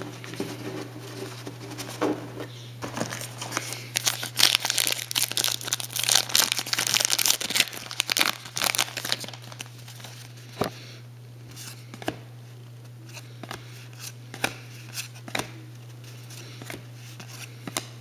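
A foil trading-card pack torn open and crinkled, a dense burst of tearing and crinkling from about four to nine seconds in, then scattered soft clicks as the cards are handled.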